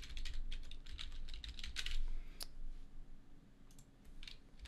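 Typing on a computer keyboard: a quick run of keystrokes for about two seconds, then one sharper single click and a few scattered taps.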